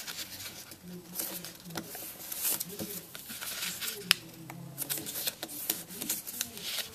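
A square of origami paper being folded by hand: irregular rustling and short sharp crackles as the creases are pressed flat.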